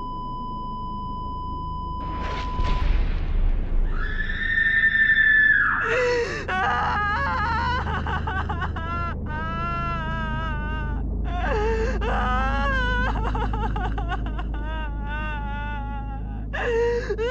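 A steady high electronic tone cuts off about two seconds in, followed by a brief whoosh; then human voices wail and scream in anguish, their pitch wavering and breaking, over a continuous low rumble.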